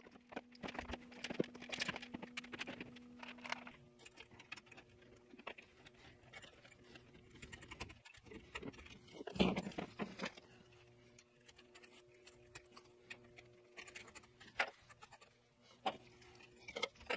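Rustling and light clicking of current-transformer wires being handled and pulled through a metal conduit fitting, with a louder rustle about nine seconds in. A faint steady tone sits underneath and shifts pitch a few times.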